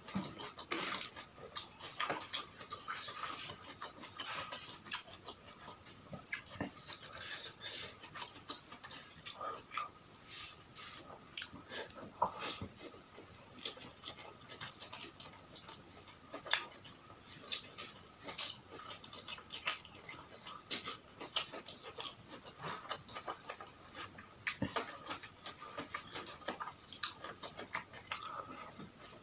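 A person chewing and smacking food close to the microphone: irregular, sharp wet mouth clicks, several a second, with a faint steady high hum underneath.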